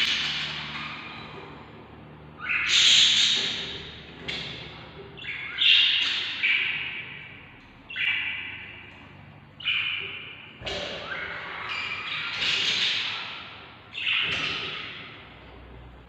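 Budgerigars squawking: a harsh call every second or two, each one starting abruptly and fading away.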